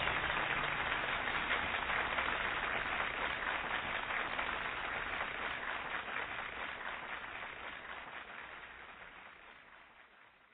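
Audience applause, a dense patter of many hands clapping, fading out gradually and dying away near the end.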